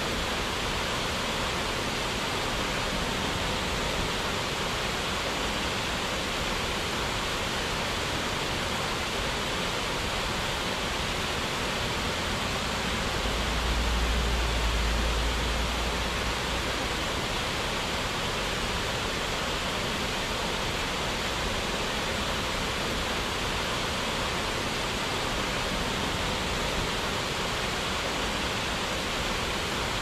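Steady rushing of water falling over a small waterfall, an even hiss with no break. About halfway through, a low rumble swells for a few seconds and then fades.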